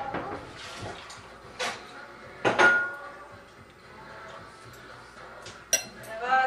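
Dishes and cutlery knocking and clinking: a few separate sharp knocks, the loudest about two and a half seconds in with a brief ring, and a bright ringing clink near the end.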